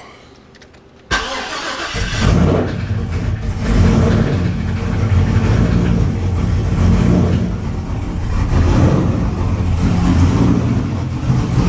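The Trailblazer SS's freshly swapped, supercharged LSA V8 is cranked by the starter about a second in, catches and keeps running at idle. It is running untuned on 90-pound injectors.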